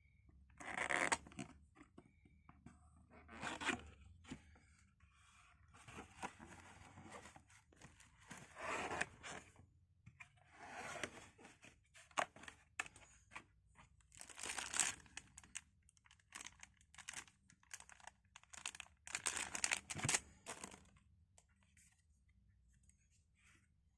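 Shoe packaging being torn open and crinkled by hand, in irregular bursts with short pauses between.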